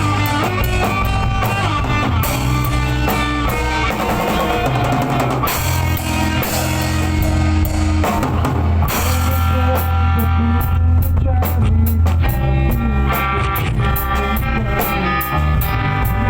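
Rock music played loud on drum kit, electric guitar and bass, with a steady driving drum beat.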